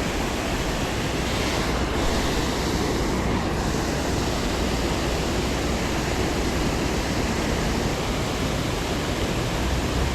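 Steady rushing of a small creek waterfall, an even wash of water noise with a low rumble beneath it.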